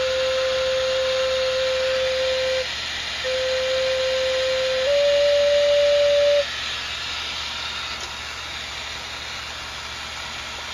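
River cane Native American flute sounding test notes during tuning to A440: a C held steady for about two and a half seconds, the same note again briefly, then a step up to a slightly higher D. The notes stop a little past halfway, leaving a steady hiss.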